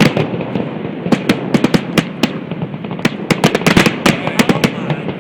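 Aerial fireworks going off in quick succession: many sharp bangs and crackles, several a second, overlapping each other throughout.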